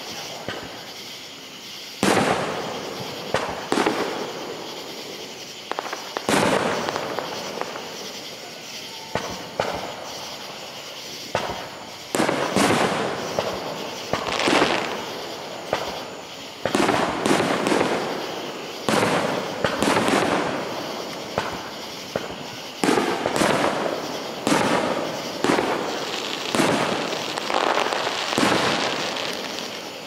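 Aerial firework shells bursting in a steady string of sharp booms, each trailing off in a fading echo. They are spaced a second or two apart at first, then come thick and fast from about halfway through.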